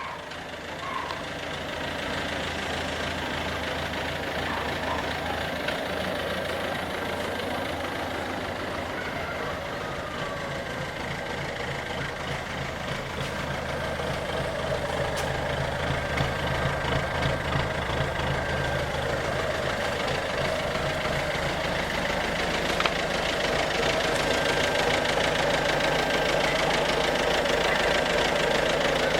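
2007 Ford Focus C-Max's 1.6 TDCi four-cylinder turbodiesel running steadily with the abnormal engine noise the owner calls a "bad sound", the sign of an engine problem. It grows somewhat louder in the second half.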